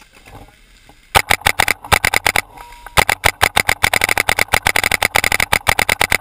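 Paintball marker firing rapid strings of shots right at the microphone: a burst of about ten shots just after a second in, a brief pause, then a longer string of about thirty shots at eight to ten a second.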